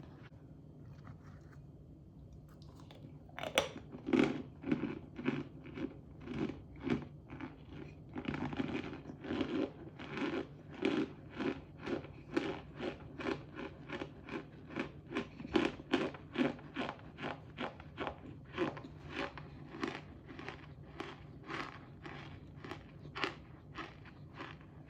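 Close-up crunching and chewing of hard, crunchy cornstarch, starting with a loud bite about three and a half seconds in, then a steady run of crisp crunches at about two a second.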